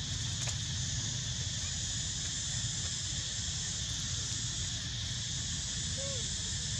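Steady, high-pitched drone of insects with a low, steady rumble beneath it. A brief faint chirp comes about six seconds in.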